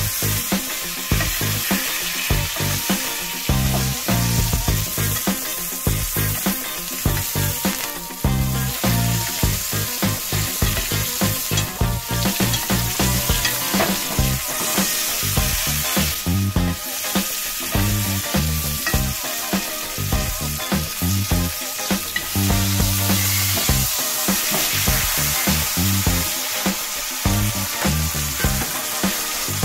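Steak sizzling in foaming butter in a cast iron pan as it is basted with a spoon, over background music with a steady bass line.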